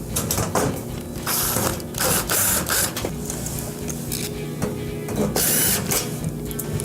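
Short bursts of mechanical clicking and whirring as a sheet-metal back panel is fitted and fastened onto a wall oven, over steady background music.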